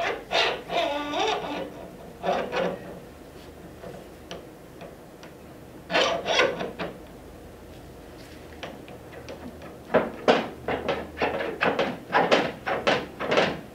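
Motorcycle upside-down fork leg being slid up into the triple clamps: metal rubbing and scraping against the clamps, in short bouts, with a quick run of knocks and scrapes in the last few seconds.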